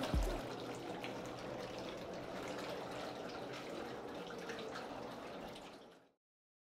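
Whirlpool bathtub jets running, a steady rushing churn of water that cuts off abruptly about six seconds in.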